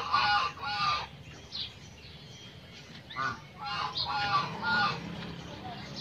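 Flock of white domestic geese honking. There is a cluster of calls in the first second, one call a little after three seconds in, and another cluster from about four to five seconds in.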